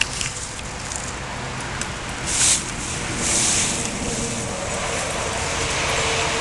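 Dry fallen leaves rustling and crackling as two dogs nose and step through a leaf pile, with louder bursts of crunching about two and a half and three and a half seconds in, over a steady background noise.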